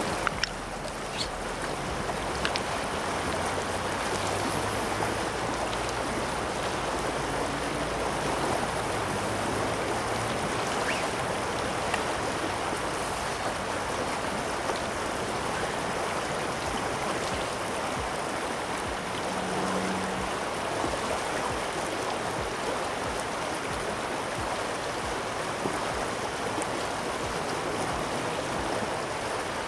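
Steady rush of a shallow river flowing over a gravel bed.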